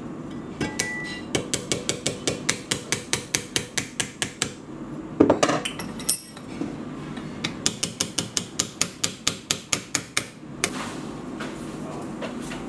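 Small hammer tapping a metal pin into a wooden knife handle, in two quick runs of about four light, even taps a second, with one louder knock in the pause between them.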